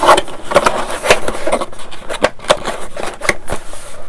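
Plastic model-kit parts and their packaging being handled: a rapid, irregular run of clicks and crinkling rustles.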